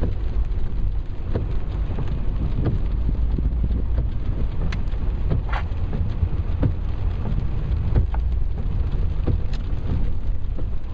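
Rain hitting a car's windscreen and roof, heard from inside the cabin: scattered sharp taps of drops over a steady low rumble.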